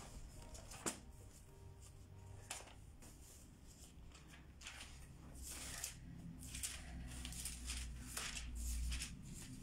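Pages of a Bible being leafed through by hand: soft papery rustles, a few at first and then a quicker run of page turns in the second half.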